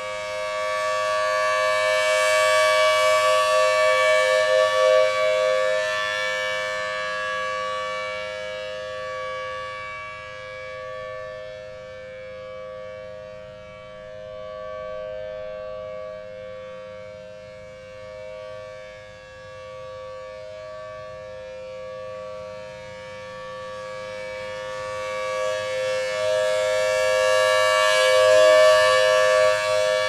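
Federal Signal Thunderbolt 1000T rotating siren sounding its steady alert: a held two-note tone at constant pitch. It swells loud as the turning horn faces the listener a few seconds in, fades while the horn points away, and swells again near the end.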